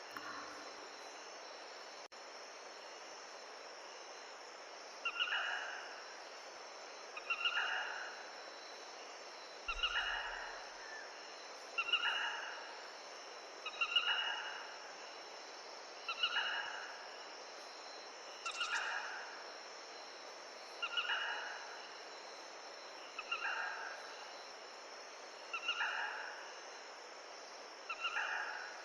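Steady rush of a mountain stream. From about five seconds in, a short animal call repeats about every two seconds, eleven times, each call fading quickly.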